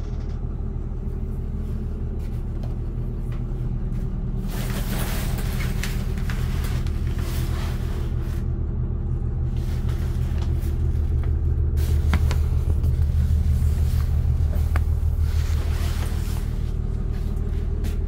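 The six-cylinder diesel engine of a Blue Bird TC2000 school bus idling with a steady low rumble, heard from inside the bus. Handling noise rustles and clicks over it twice, and the second time comes as a hand pulls a curtain aside.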